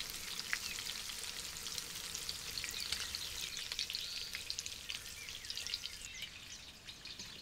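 Corn-flour-coated mackerel pieces frying in shallow hot oil in a frying pan: a steady sizzle with a dense crackle of small pops, thinning slightly near the end.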